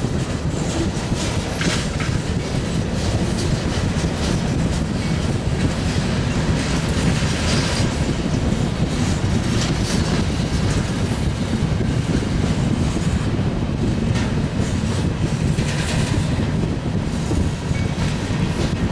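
Norfolk Southern mixed freight train's cars rolling steadily past, a continuous rumble with wheels clacking over the rail joints.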